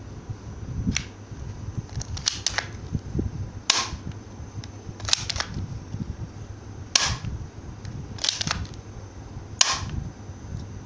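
Spring-powered M92A1 toy airsoft pistol being worked and fired: a series of sharp plastic snaps about every second and a half, several coming in quick pairs.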